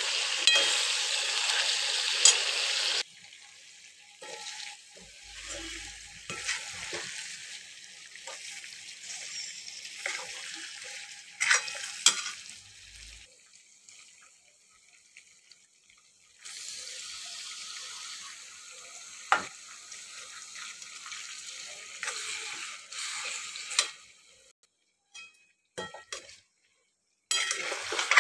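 Chicken pieces sizzling in hot oil and masala in a pan while a steel spoon stirs them, with occasional clinks and scrapes of the spoon against the pan. The sizzle is loudest for the first few seconds, then comes and goes in fainter stretches, with brief silent gaps near the end.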